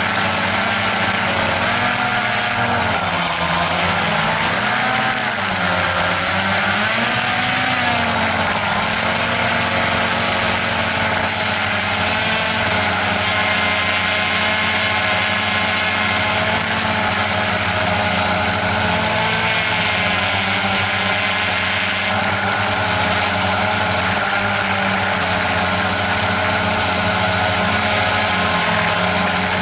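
Quadcopter drone's electric motors and propellers whining steadily. A couple of seconds in, the pitch swings up and down for several seconds as the throttle changes, then holds steady.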